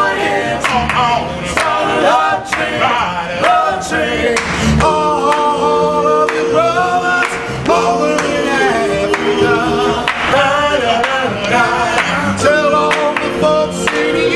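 Male vocal group singing doo-wop in close harmony, with sharp handclaps keeping the beat about twice a second.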